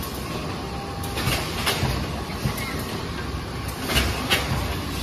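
SINOSUN HL-2000AB double-sheet corrugated carton folder gluer running: a steady mechanical din broken by sharp clacks, the loudest a pair about four seconds in.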